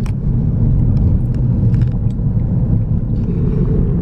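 Steady low road and engine rumble heard inside the cabin of a moving car, with a few faint clicks.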